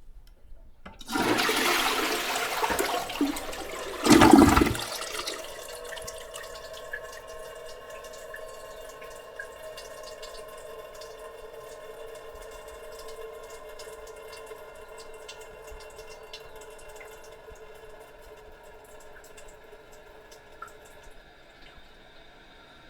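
Toilet in a small WC flushing: a sudden rush of water about a second in, loudest around four seconds, then the cistern refilling with a steady hiss and faint held tones that slowly fades.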